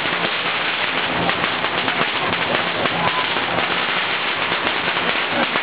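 A string of firecrackers going off in rapid, continuous crackling, without a break.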